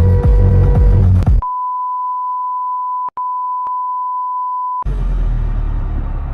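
Electronic dance music with a heavy beat, cut off about a second and a half in by a steady single-pitch bleep tone, like a censor bleep. The bleep lasts about three and a half seconds, with a very short break in the middle. After it comes a quieter stretch of even noise without music.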